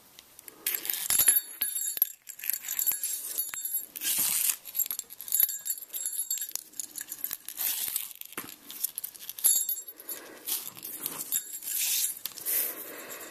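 Small metal jingle bell jingling again and again as it is handled on a leather lace, its bright ringing coming in short clusters. Rustling of the lace and hands on the work surface runs underneath.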